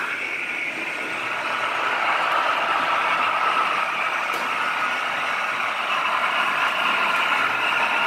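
Märklin HO model trains running on the layout: a steady whir of the wheels and motors on the metal rails, slightly louder about two seconds in.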